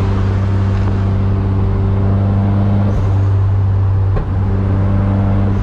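Turbocharged KA24DE four-cylinder engine of a Nissan 240SX (S13) cruising at highway speed, heard from inside the car as a steady drone, with a brief break about four seconds in.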